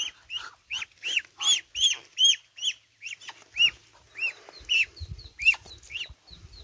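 Growing poultry chicks peeping repeatedly, short high calls about two or three a second, with a few low thumps in the second half.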